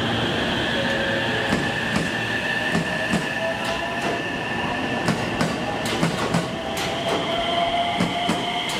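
JR West 227 series electric train moving along the platform track, its wheels clicking irregularly over rail joints and points. A steady motor whine runs underneath, rising slightly in pitch in the second half.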